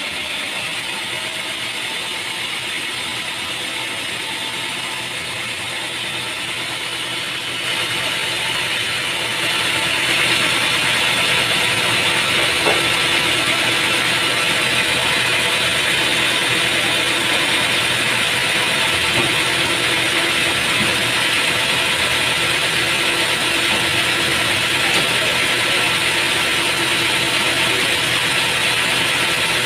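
Sawmill machinery running steadily, a mechanical clatter and hiss that grows louder about eight seconds in and again about ten seconds in.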